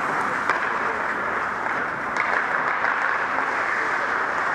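Ice hockey play on an indoor rink: a steady hiss and scrape of skates on the ice, with a few sharp clacks of sticks and puck.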